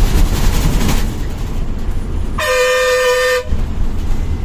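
Steady engine and road rumble of a moving bus heard from inside the cabin, with a single horn blast lasting about a second just past the middle.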